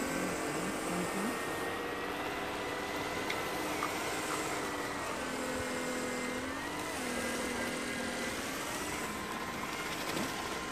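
Motors of two 3D-printed miniature RC snow blowers running under load as they throw snow: a steady whine with a few pitch shifts, over a rushing hiss.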